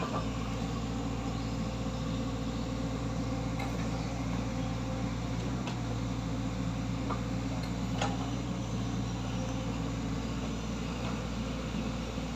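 Mini excavator's diesel engine running steadily, with a couple of faint clicks about six and eight seconds in.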